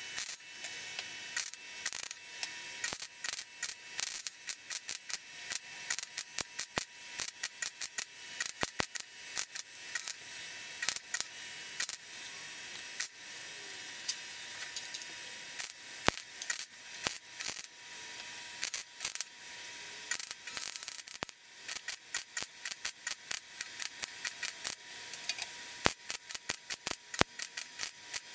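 Wire-feed welder arc crackling and spitting with many sharp pops over a steady hiss, welding up stress cracks in a steel seat pan.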